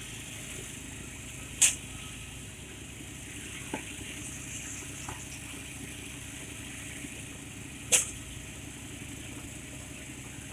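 Engine running steadily at a low, even hum, with two sharp knocks about six seconds apart.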